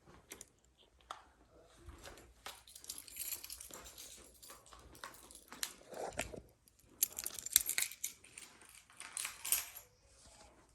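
Scattered clicks, light clinks and rustling of small objects being handled, with louder bursts of rustling several times.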